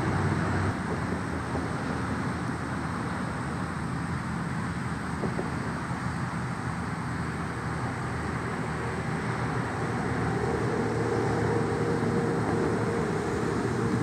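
Steady distant road traffic rumbling. In the last few seconds a passing vehicle's engine hum grows louder.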